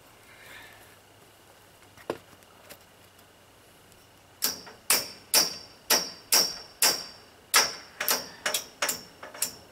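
Hammer tapping a clamp onto the metal pipes of a tent frame: about a dozen sharp, ringing metal strikes, roughly two a second, starting about halfway through. Before that, a single light knock.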